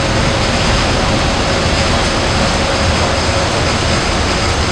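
Steady, loud rushing of wind and water on the open deck of the Staten Island Ferry underway, with a faint steady hum beneath.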